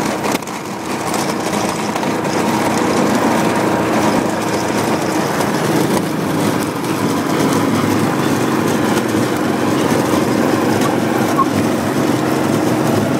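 Kawasaki Mule utility vehicle's engine running steadily while its front snowplow blade pushes snow.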